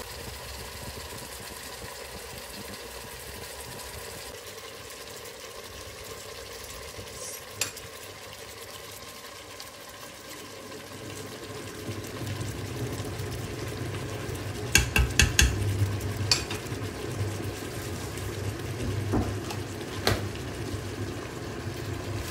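Meat and vegetables sizzling as they fry in a metal pot, getting louder about halfway through. A quick run of sharp knocks of a utensil on the pot comes a little later, and a spoon stirs the food near the end.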